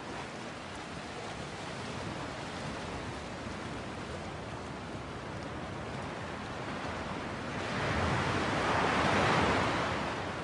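Steady rushing ambience of wind over open sea. It swells to a louder rush about eight seconds in and fades back near the end.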